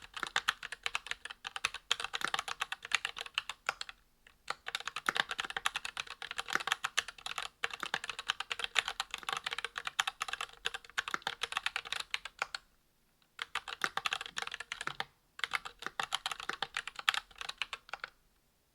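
Fast typing on a Monstargear Alu XO V2 mechanical keyboard with a brass plate, GMK Jamon keycaps and ZealPC Zealios V2 62g tactile switches with Krytox 105 lubed springs. It is a rapid stream of key clacks in runs, broken by a few short pauses, and it stops shortly before the end.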